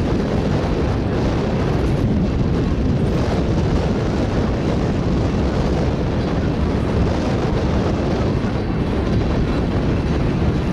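Freight train's covered hopper cars rolling past: a steady rumble of steel wheels on the rails.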